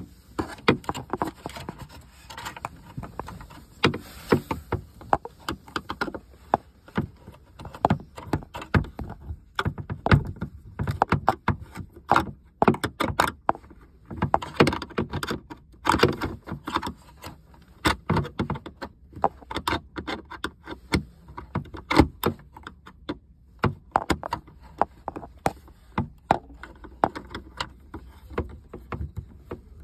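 Irregular clicks, taps and knocks of hand work on plastic dashboard trim: a screwdriver working a screw inside a dash opening, with plastic parts and the connector knocking against it.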